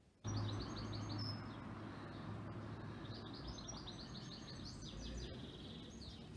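Songbird singing: quick runs of repeated high notes in two or three phrases, over a steady low outdoor rumble. The sound starts abruptly about a quarter second in.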